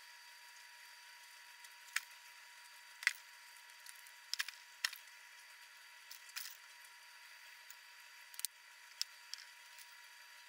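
Wet paper pulp being pressed and dabbed by fingers and a thin tool on a mould screen: scattered small squishy clicks, about eight in all, spaced irregularly.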